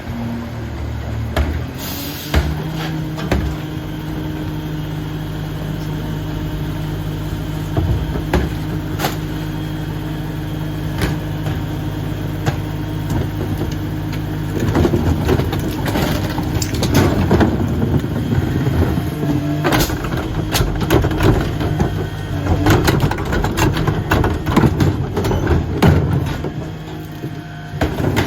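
Dennis Eagle rear-loader garbage truck running at a steady raised engine speed, with a brief hiss about two seconds in. About halfway through, irregular banging and clattering start and continue over the engine, as refuse and bins knock against the truck's hopper.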